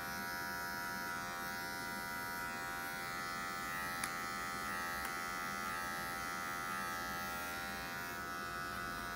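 Cordless electric hair clipper with a comb guard running steadily and cutting hair, a continuous motor buzz at one pitch. Two small ticks come about four and five seconds in.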